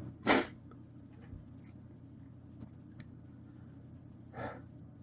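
A man's breathing in the middle of a sneezing fit: a short sharp breath right after a sneeze, then a quiet pause with a couple of faint clicks, and a softer breath near the end as the next sneeze builds.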